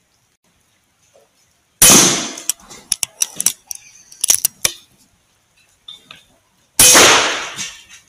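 Two shots from an Air Arms S510 Superlite .22 pre-charged pneumatic air rifle, about five seconds apart, each a sharp crack with a ringing decay. A run of sharp clicks comes between them.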